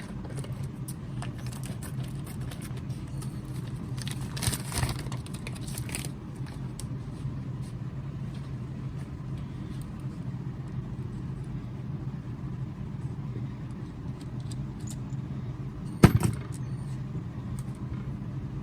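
Metal tool-post parts being handled: light clinks and rattles about four to six seconds in, and one sharp knock near the end, over a steady low hum.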